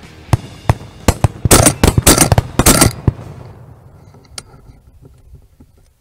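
Shotguns firing at flying pheasants: a few single shots, then a dense volley of overlapping shots lasting about a second and a half, and one more shot about four seconds in.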